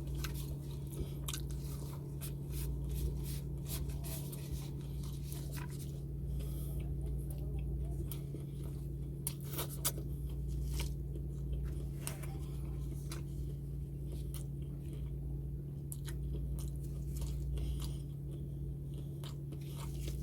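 A person chewing and biting crunchy food close to the microphone: irregular crunches and mouth clicks. A steady low hum runs underneath.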